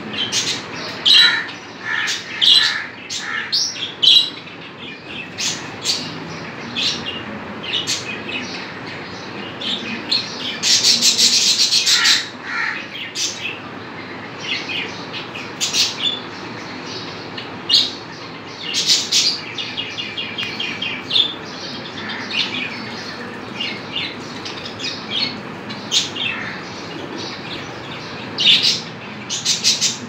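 Small pet parrots chirping and chattering in a cage: short, sharp high chirps come again and again, with a longer run of rapid, buzzy chatter about ten seconds in and another around twenty seconds.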